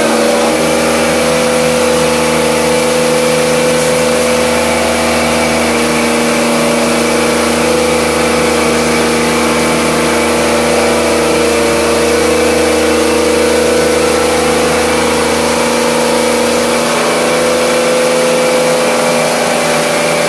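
Bosch Aquatak electric pressure washer running steadily under load, its motor and pump giving a constant hum while the water jet hisses against the outdoor AC unit's condenser coil.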